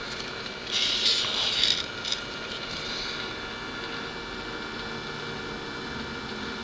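Handling noise: a brief rustle about a second in and a small click soon after, over a steady background hiss.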